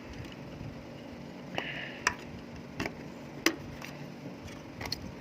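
Plastic casing of a portable USB fan being worked open by hand: several sharp clicks and knocks, with a short scrape about one and a half seconds in.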